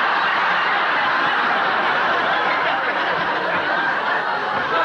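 Studio audience laughing, a sustained crowd laugh at a joke.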